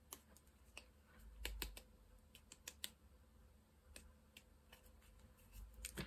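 Near silence with faint, scattered small clicks and taps of pixie powder being shaken from a small plastic bottle onto a stencilled card.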